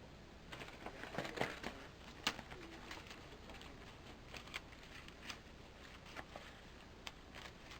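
Paper and card pieces being handled and sorted: scattered light clicks and rustles, a few more in the first couple of seconds.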